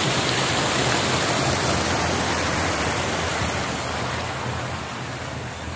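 Water pouring over a small weir into a channel: a steady rushing that fades over the last couple of seconds.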